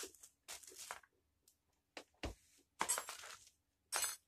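Handling of a stand mixer and its stainless steel bowl: a few separate clinks and knocks of hard parts, with a short rustle near the start.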